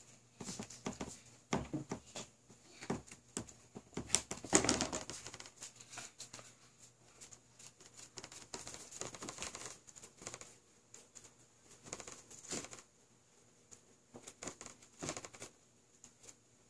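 Paintbrush dabbing and brushing paint over a papier-mâché volcano, an uneven patter of small taps and paper crinkling, busiest about four to five seconds in.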